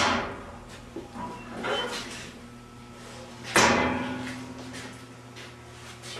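Metal door and latch handle of a Cooper medium-voltage switchgear cabinet being worked open: a few lighter knocks, then a sharp metal clunk about three and a half seconds in that rings briefly.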